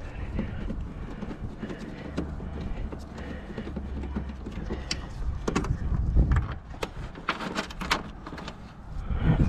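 Handling of a 2001 Ford Windstar's plastic windshield cowl panel: scattered clicks and knocks as a gloved hand and a wrench press and tug at it, a couple about five seconds in and a quick cluster near eight seconds, over a low steady rumble.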